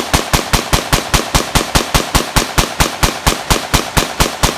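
AR-15 rifle fired in rapid semi-automatic succession: a fast, even string of shots, about six a second.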